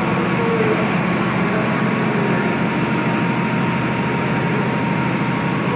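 Grain-cleaning machine with sieve decks running steadily, a constant mechanical hum, while it cleans finger millet (ragi).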